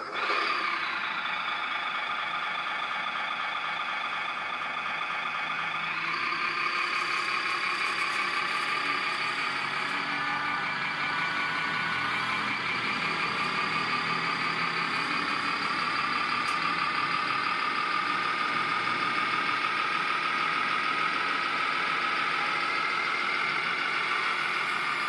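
Radio-controlled Bruder Liebherr wheel loader running: a high, steady mechanical whine that starts suddenly and grows louder and fuller at about six seconds as the loader drives to the soil pile and works its bucket.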